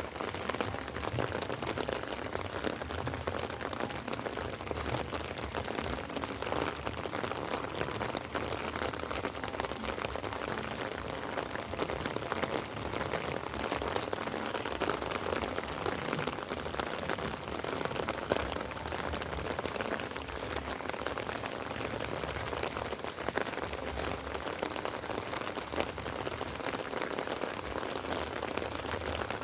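Light rain falling, a steady dense patter of drops, with one sharper tick about two-thirds of the way through.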